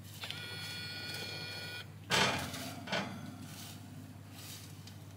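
A fan oven's steady low hum. Near the start comes a held high ringing tone for about a second and a half. Then two short scraping rustles follow, the first the loudest sound, as a wooden spoon stirs baking granola on a metal tray.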